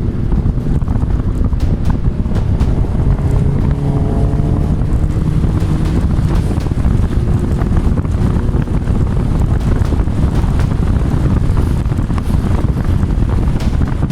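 Volvo 480 Turbo's 1.7-litre turbocharged four-cylinder running on the move through a homemade exhaust, with heavy wind buffeting on a phone microphone. The engine note rises for a few seconds from about three seconds in.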